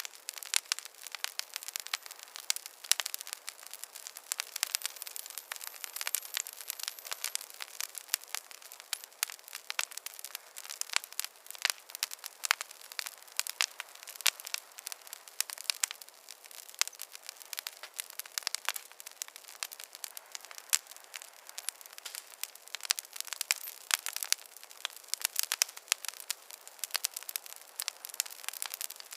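Wood fire crackling in a fireplace: a constant scatter of sharp pops and snaps over a soft hiss.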